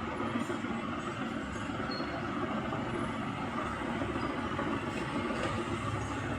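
Steady background rumble and hiss with no distinct knocks or clicks.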